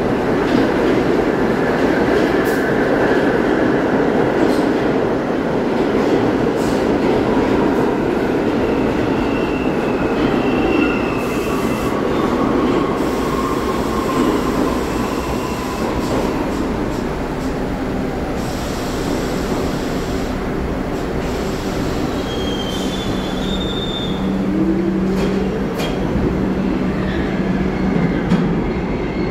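R62 subway train pulling out of an underground station: a steady rumble of the cars rolling along the track, with a few brief high wheel squeals and a rising motor whine late on as it gathers speed.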